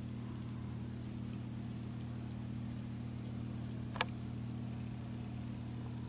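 Steady low hum with one short, sharp click about four seconds in.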